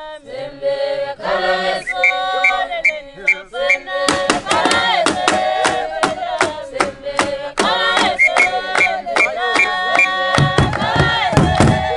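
Eswatini traditional song sung in chorus by a group of women, with handclaps coming in about four seconds in and short repeated whistle blasts over the singing. Heavy drum beats join near the end.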